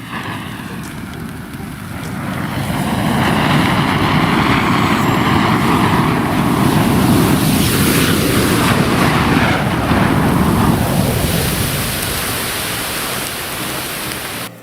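Giant ball of matches flaring up and burning with a loud rushing hiss. The hiss builds over a couple of seconds, holds steady, then dies down near the end.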